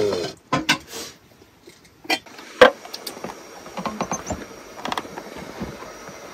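Dishes and bowls being set down and moved on a table: a few separate sharp knocks and clinks, the loudest a short ringing clink about two and a half seconds in.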